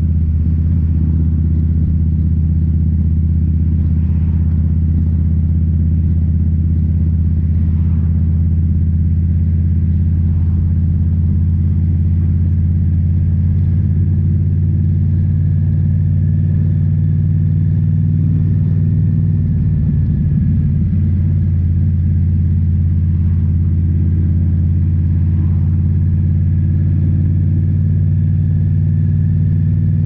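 2018 Indian Scout Bobber's V-twin engine running at a steady cruise through Rinehart slip-on mufflers. The engine note briefly wavers and shifts about two-thirds of the way in, then runs steady again.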